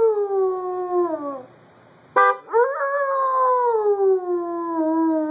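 A dog howling in answer to a car horn. One long, falling howl trails off about a second and a half in. A short honk of the horn a little after two seconds sets off another long howl that slides slowly down in pitch.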